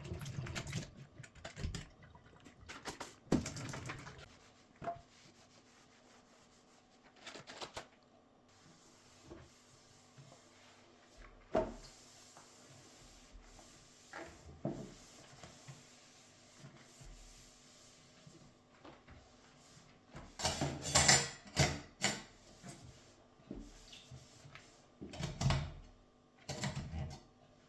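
Household handling sounds: scattered small clicks, knocks and rubbing of objects being moved about, with a busier run of louder knocks and scrapes about two-thirds of the way through.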